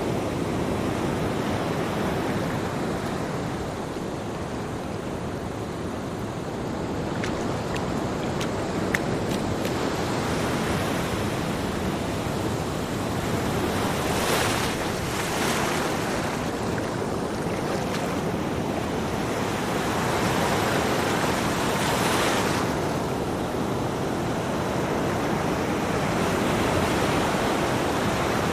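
Ocean waves on a beach: a steady wash of surf, with louder waves breaking in the middle and about three-quarters through.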